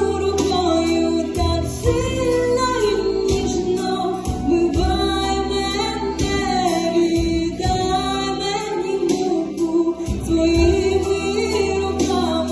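A woman singing a song with instrumental accompaniment, her voice carrying long held notes over a low bass line.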